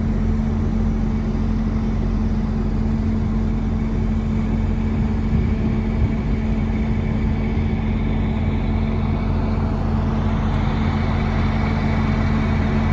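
Concrete pump truck's engine running steadily while pumping concrete through the hose, a constant low drone with a steady hum.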